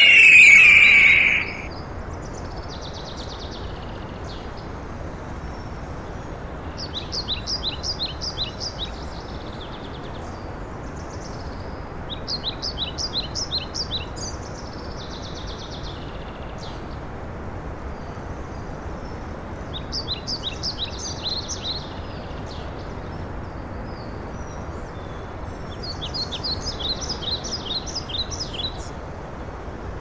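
A songbird sings short, fast trilled phrases every several seconds, four of them standing out clearly, over a steady rush of running water. A louder call opens it, lasting about a second and a half.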